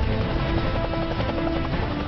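Background music with held notes over a deep low rumble.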